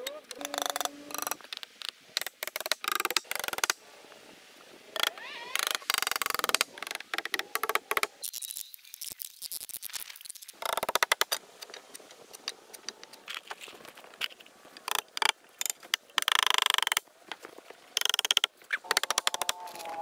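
Knocks and clatter of hammer blows and wooden boards being handled as a floor frame of freshly sawn 2x6 lumber is nailed together. The knocks come in quick, dense runs of clicking.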